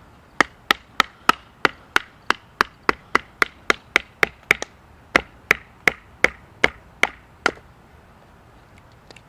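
A wooden baton knocking on the spine of a serrated Ontario Utilitac pocket knife, driving the blade down through a piece of firewood to split it. About twenty sharp knocks come roughly three a second, with a brief pause midway, and stop about two seconds before the end, followed by a few faint clicks.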